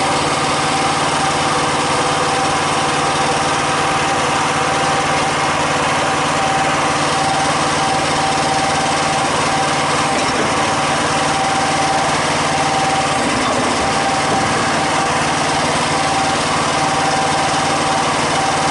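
Small engine of a Typhon Terror One 1-ton mini excavator running steadily at a constant speed, with a steady hum.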